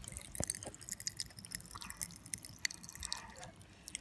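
Pop Rocks popping candy crackling in a mouth: a dense, irregular patter of tiny sharp snaps and clicks, a really strong popping.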